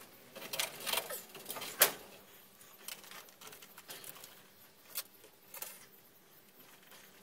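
Metal parts of a go-kart's front wheel spindle and C bracket clinking and knocking as they are handled and taken apart by hand: a scatter of clicks, with the sharpest knock a little under two seconds in.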